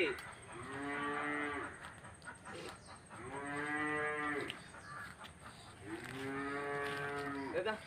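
A cow mooing three times, each moo a long, even call of about a second and a half, the calls a couple of seconds apart.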